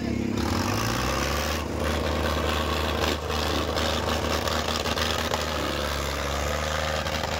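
Tractor diesel engines, a Mahindra 265 DI XP Plus's and a second tractor's, revving up about a second in and then held at steady high revs, pulling against each other in a tug-of-war.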